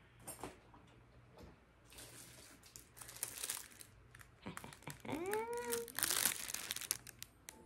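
Clear plastic wrapping crinkling in bursts as wrapped items are handled and pulled out of a box. A short, excited wordless vocal sound comes about two-thirds of the way through.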